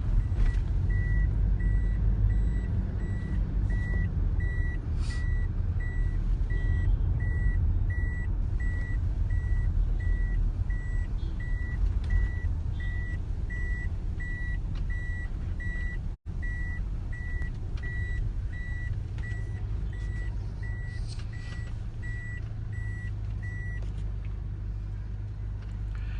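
Low rumble of a vehicle on the move, with a high electronic warning beep repeating steadily about one and a half times a second that stops near the end. The audio drops out for an instant about two-thirds of the way through.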